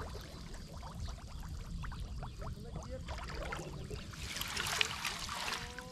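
Water splashing and trickling amid small knocks, with a louder rush of splashing from about four seconds in.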